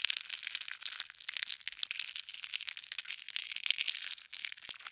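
A mass of maggots squirming against one another, making a dense, irregular crackling of many tiny clicks.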